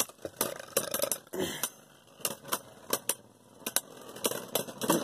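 Two plastic-and-metal Beyblade Burst tops battling in a plastic stadium: a string of sharp, irregular clacks as they strike each other and the stadium walls, over a faint spinning whirr. One top, Dranzer, is on an attack-type driver and moves around aggressively.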